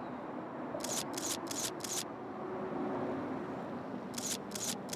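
Camera shutter firing in rapid bursts: four quick frames about a second in, then another burst near the end, over a steady low background hum.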